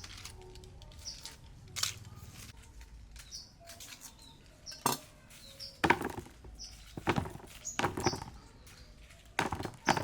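Irregular sharp knocks and cracks of food being worked, like chopping, a few at first and several louder ones in the second half, with short high chirps in between.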